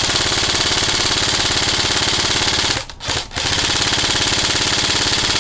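KWA SR10 airsoft electric gun firing on full auto at a very high rate, a fast buzzing stream of shots. Firing breaks off briefly about three seconds in, with a short burst in the gap, then continues.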